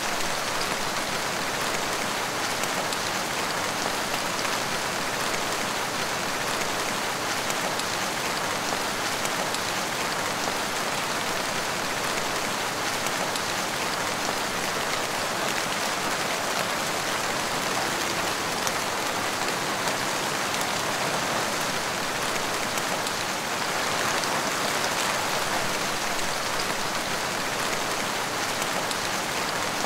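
Heavy rain falling steadily, an even hiss of drops with no breaks.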